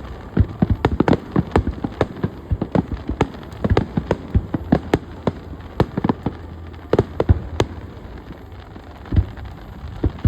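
Fireworks bursting in a rapid, irregular string of bangs and crackling pops, several a second, thinning out toward the end.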